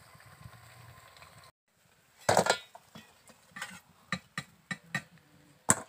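Metal ladle clinking and scraping against an iron karahi and a steel bowl as fried gur pitha are lifted out of the oil: a loud clatter about two seconds in, then a string of sharp metal clinks.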